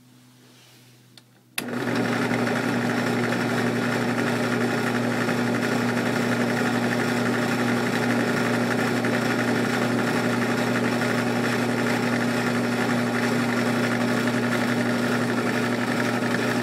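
Electric motor running at a steady speed, starting abruptly about one and a half seconds in, with a steady hum and its overtones: a small DC motor salvaged from a cordless weed eater being spun as a generator into a multimeter's 10-amp load.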